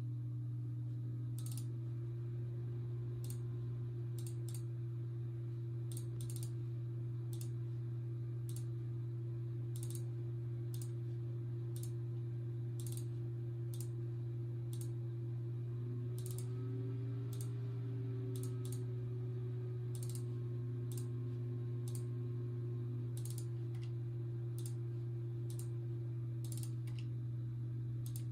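Computer mouse clicking, single sharp clicks at an uneven pace of about one or two a second, over a steady low hum.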